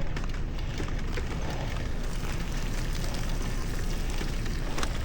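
Steady rushing noise of a bicycle being ridden through snow: wind rumbling on the camera's microphone over the tyres in the snow, with a few sharp ticks, one near the end.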